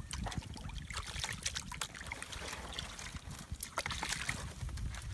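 Open wood fire crackling, with small sharp pops scattered throughout over a steady low rumble.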